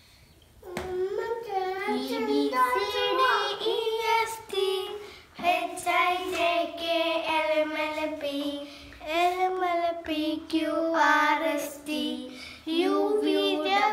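A child singing a song in phrases, starting about a second in, with short breaks about a third of the way through and near the end.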